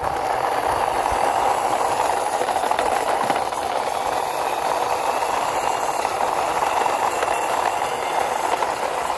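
Hard plastic wheels of a toy truck rolling on rough concrete as it is pushed by hand, a steady rolling noise that lasts until the truck is parked.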